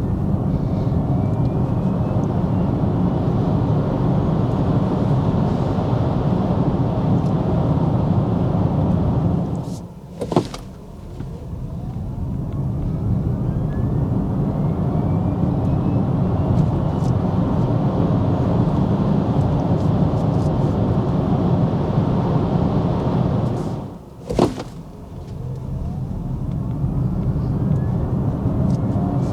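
Kia EV6 rear-wheel-drive electric car accelerating hard twice: steady tyre and road rumble on winter tyres, with a faint electric-motor whine rising in pitch as speed builds. Each run ends in a sudden drop in noise with a short click, about ten seconds in and again near the end.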